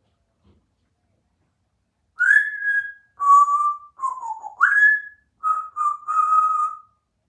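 Congo African grey parrot whistling a short phrase of clear notes, starting about two seconds in: a rising note, a lower held note, a falling note, a quick upward swoop, then three short notes at one pitch.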